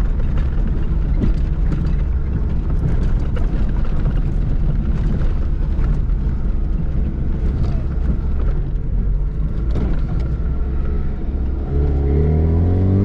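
Yugo car engine running steadily as the car drives over a rough dirt track, heard from inside the cabin, with scattered knocks. About twelve seconds in, the engine revs up and its pitch rises.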